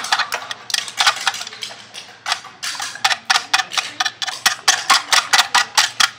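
Hand scratching and tapping quickly on an aluminium drink can, a run of sharp metallic clicks: irregular at first, then a steady quick run of about five a second in the second half.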